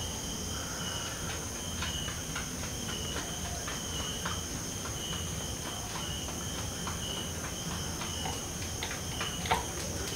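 Insects chirping in a steady repeating pulse over a constant high insect drone, with a few faint clicks and one slightly louder tick near the end.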